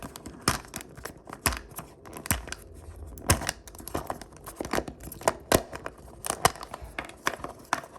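Plastic wrapper on a Zuru Mini Brands capsule ball being torn off and crinkled by hand: an irregular string of sharp crackles and rips.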